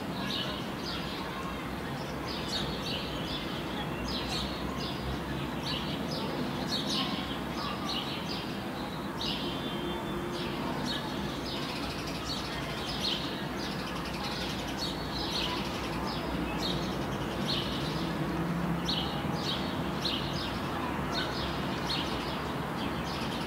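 Small birds chirping, short calls a few times a second, over a steady outdoor background noise.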